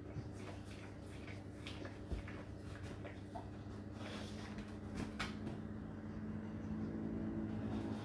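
Whirlpool dishwasher running a rinse: a steady pump and motor hum with water spraying inside the tub and scattered short clicks. The hum grows stronger over the last couple of seconds.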